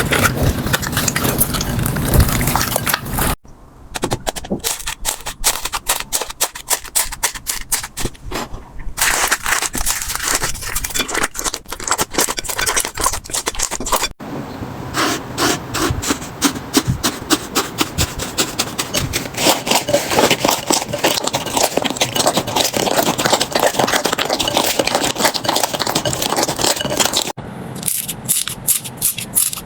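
Slime being worked by hand, giving dense crackling and clicking pops with some scraping. The sound changes abruptly several times as one short slime clip gives way to the next.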